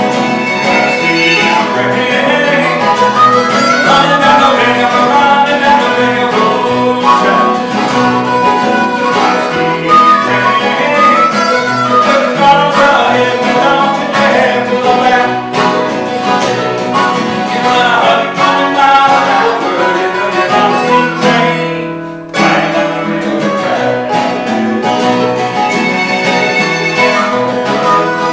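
Acoustic folk band playing: harmonica over strummed acoustic guitar and mandolin. The music briefly drops away about two-thirds of the way through, then comes back in.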